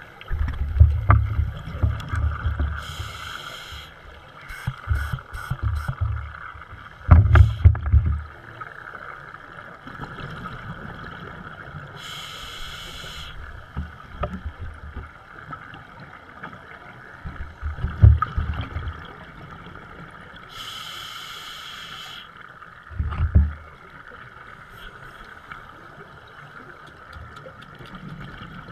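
Scuba diver breathing through a regulator, heard underwater: three short hisses of inhalation about nine seconds apart. Between them come low rumbling bursts of exhaled bubbles, the loudest sounds.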